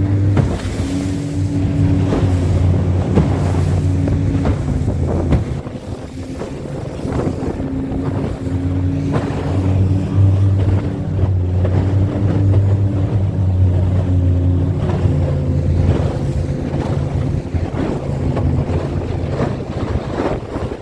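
An engine running steadily, its hum dipping and returning several times, with wind buffeting the microphone.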